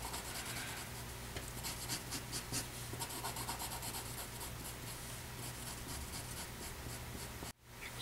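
Pencil scratching on paper in many short, quick strokes, sketching and putting in texture on a drawing. The sound drops out for an instant near the end.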